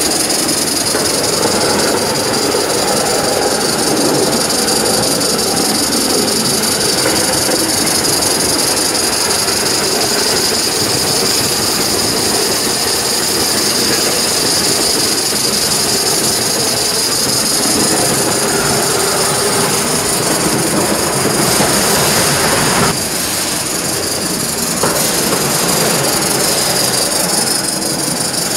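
Live-steam Gauge 1 model of a Southern Pacific F-4 2-10-2 locomotive running on track: a steady hiss of steam with the rumble of its wheels on the rails. The sound drops a little for a couple of seconds about three-quarters of the way through, then comes back.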